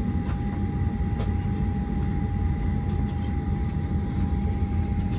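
Cabin noise of a Boeing 737-800 taxiing after landing: its CFM56 engines at idle give a steady low rumble, with a thin steady whine running over it.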